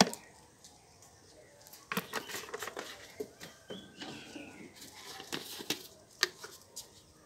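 Handling noise from a plastic jar of dry fertilizer and its spoon: a sharp click at the start, then from about two seconds in an irregular run of small clicks, taps and rustles.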